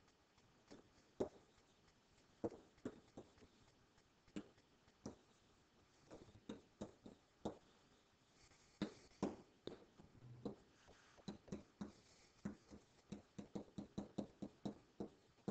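Faint, irregular taps and clicks of a pen on a digital writing surface as highlighting and handwriting are drawn, coming quicker in the last few seconds.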